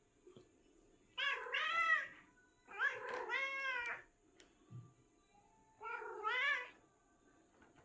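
A domestic cat giving three drawn-out, wavering meow-like calls, each about a second long: the strange sounds it makes while hunting.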